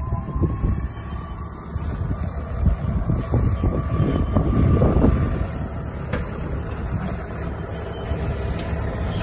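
Tractor engine running as the tractor drives up to a hay bale, with a thin whine that rises slightly and fades out about halfway through, and a few short knocks from the machinery.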